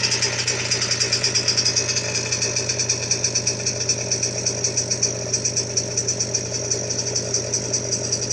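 Small gas engine idling steadily with a rapid, even pulsing beat, most likely the engine of a 5th-scale RC car.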